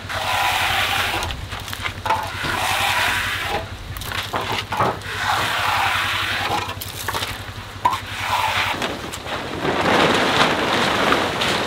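Steel hand trowel scraping over a freshly poured wet concrete countertop in repeated sweeping strokes, about one every second and a half. Near the end a large plastic tarp rustles and crinkles as it is pulled over the slab.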